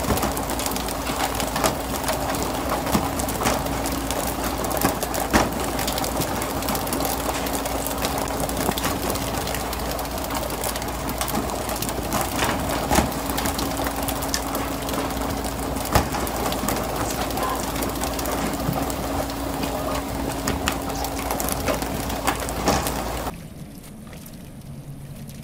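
Pole-and-line tuna fishing from a boat: a steady hiss of rushing water and spray over a constant low machinery hum, broken by many sharp knocks and slaps as tuna are flicked aboard and hit the deck. Near the end the sound cuts to a much quieter background.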